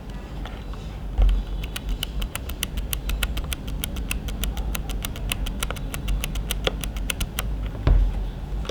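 Rapid typing on a 60% Bluetooth mechanical keyboard: a quick, even run of key clicks, about five a second, over a low background rumble. A dull thump comes near the start and near the end.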